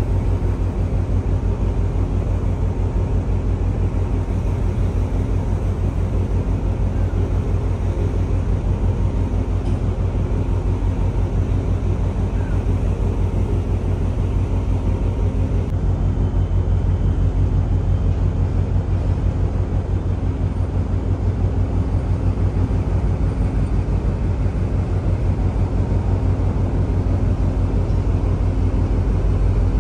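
Steady low rumble of wind buffeting the microphone high on a container ship's bridge wing, with a faint steady hum underneath.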